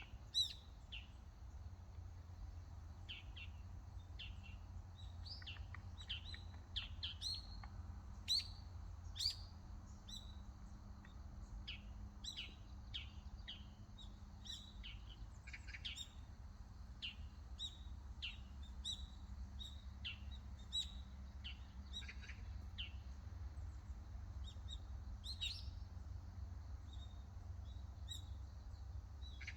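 Wild birds chirping: many short, high calls scattered throughout, over a steady low rumble.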